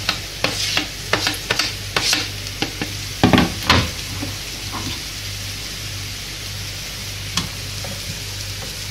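Metal spoon scraping and tapping against a plastic cutting board and the rim of a frying pan as chopped tomato is pushed onto frying cabbage, with two louder knocks a little after three seconds in. After that, a steady sizzle of the cabbage and mushrooms frying, with one more spoon click as the pan is stirred.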